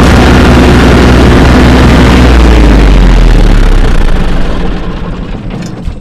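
Tractor engine running loud and steady while mowing. About two seconds in its pitch drops, and from about four seconds on it fades away.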